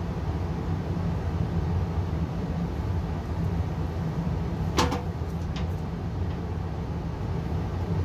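Payne gas furnace running: a steady rush of air with a low hum. About five seconds in there is a sharp click, followed by a fainter one.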